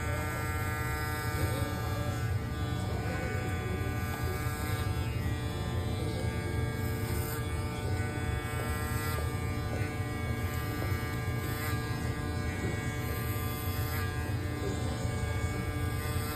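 Electric hair clippers running with a steady buzz during a haircut, with a few faint clicks along the way.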